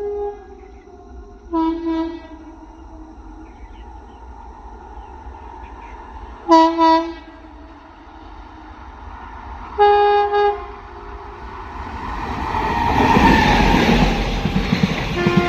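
Indian Railways electric locomotive sounding its air horn in short blasts a few seconds apart. From about twelve seconds in, the rumble and rattle of the moving train builds up and becomes the loudest sound, with one more horn blast at the very end.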